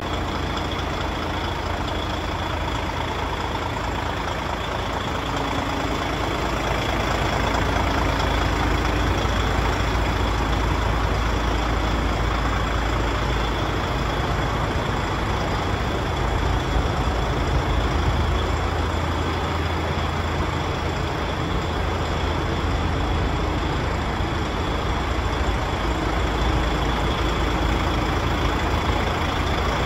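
Paccar MX 460 hp straight-six diesel engine of a DAF XF105 tractor unit idling steadily, a continuous deep low rumble.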